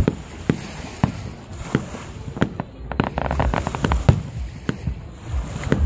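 Fireworks display: aerial shells bursting with sharp bangs about every half second, with a quick run of crackles near the middle.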